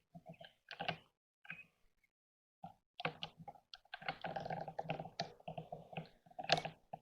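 Footsteps crunching through dry leaves and twigs: an irregular run of faint crackles and rustles, busiest in the second half.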